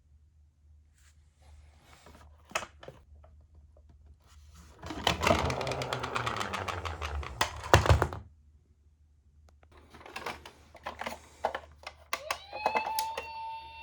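Die-cast toy ambulance minicars clicking as they are handled, then a metal toy car rattling as it rolls down a cardboard slope and knocking at the bottom. Near the end a toy ambulance's electronic siren starts with a steady high tone.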